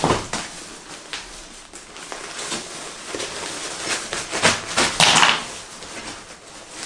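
Rustling and scuffing of nylon gear being rummaged through: a stuff sack pulled from a backpack and worked open by hand, in a series of short rustles, loudest about five seconds in.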